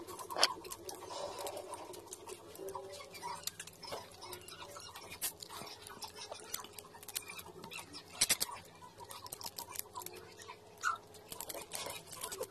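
Cooked shrimp shells being peeled and cracked apart by hand, giving a run of small crackles and clicks, with two sharp cracks about half a second in and about eight seconds in. Chewing and mouth sounds come in between.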